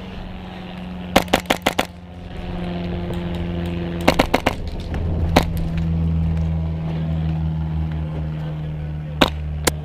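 Airsoft guns firing in short rapid bursts of sharp cracks: a string of about six shots early, a cluster around four seconds, then single shots. A low steady drone runs underneath.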